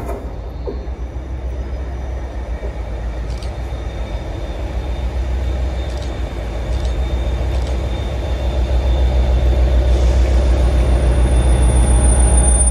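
Class 57 diesel locomotive with an EMD 645 two-stroke V12 engine, running as it approaches and passes along the platform. A deep, steady engine rumble grows louder over the last few seconds.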